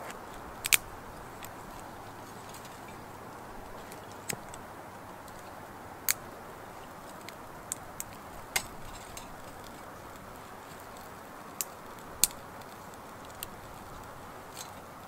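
Dry twigs burning in a small titanium wood-burning stove, crackling with sharp pops scattered irregularly every second or so over a steady soft hiss.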